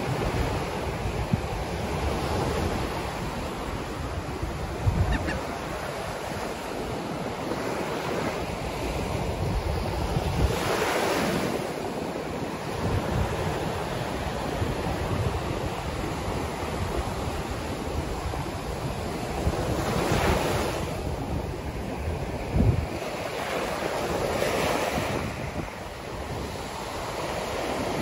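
Ocean surf breaking and washing in the shallows: a continuous rush of foam with three louder wave crashes. Wind buffets the microphone with a low rumble.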